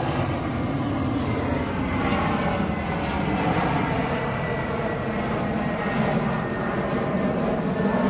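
Jet airliner passing overhead, its engines making a steady rushing noise with a faint high whine that drifts slowly lower in pitch.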